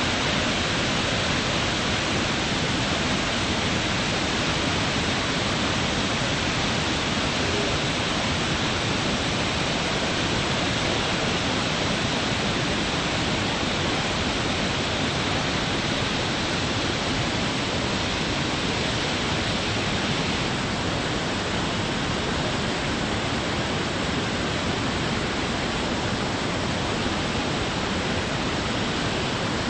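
Iguazú Falls' many cascades pouring into the gorge: a loud, steady rush of falling water.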